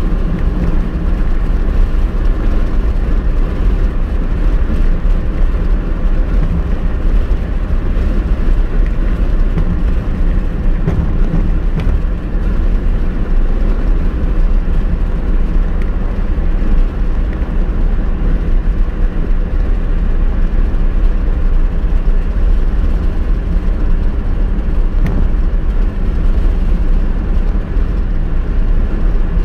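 Steady low drone of a car driving at highway speed, heard from inside the cabin: tyre and road noise with engine hum, unchanging throughout.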